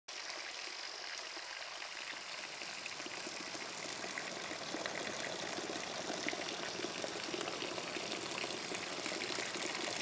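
Steady rushing of a flowing mountain stream.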